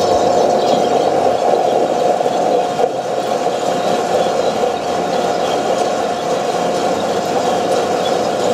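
Probat two-barrel sample coffee roaster running partway through a roast, before first crack: a steady mechanical hum with a constant mid-pitched whine.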